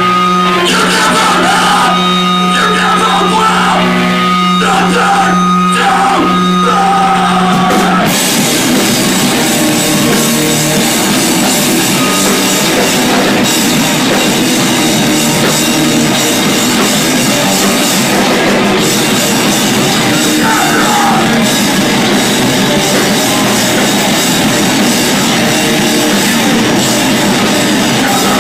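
Live heavy rock band played loud: a held note rings on for the first several seconds, then about eight seconds in the full band comes in, drums and guitars together, with the vocalist shouting into the microphone.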